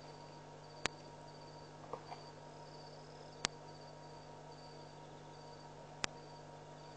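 Crickets chirping in short trills over a steady low hum, with a sharp click repeating about every two and a half seconds.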